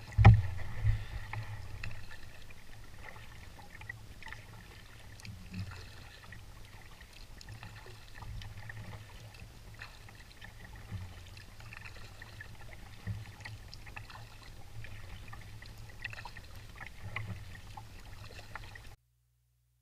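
Canoe being paddled: water splashing and lapping at the hull with scattered small clicks from the paddle strokes, and a few heavy knocks just after the start. The sound stops abruptly near the end.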